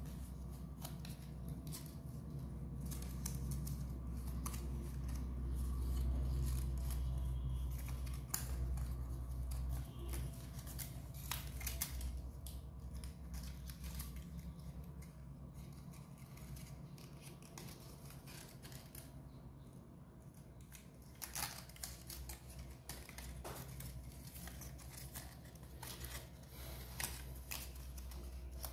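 Printed paper being folded and pressed by hand: irregular light crinkles and clicks of paper, over a steady low hum.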